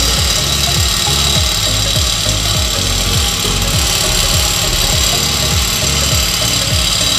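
Background music with a steady bass beat, about two beats a second.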